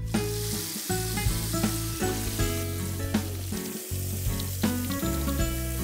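Tap water running steadily into a sink basin, a continuous hiss, with background music playing over it.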